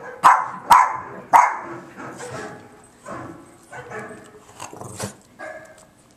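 Boston terrier barking: three loud, sharp barks in the first second and a half, then quieter barks spaced out over the rest.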